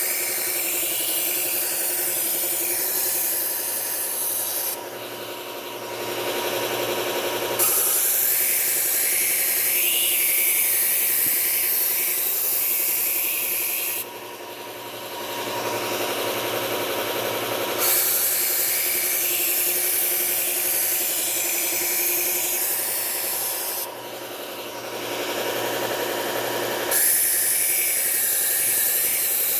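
Bucktool low-speed belt sander running steadily with a 3M Cubitron II P120 belt, a steel kitchen knife edge ground across it in about four long passes of several seconds each, with short breaks where only the motor hum remains. The grinding is raising a burr along the edge.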